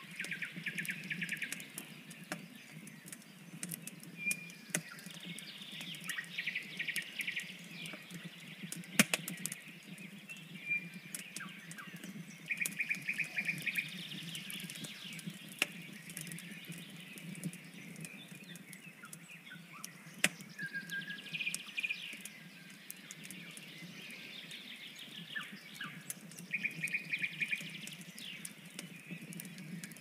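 Small songbirds singing short trilled phrases every few seconds over a crackling wood fire, with sharp pops scattered through and the loudest pop about nine seconds in.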